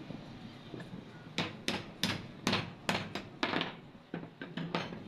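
A hammer taps on the top of a Honda CD70 front fork tube, about a dozen sharp metal knocks roughly three a second, starting about one and a half seconds in. The blows drive the new fork oil seal into place.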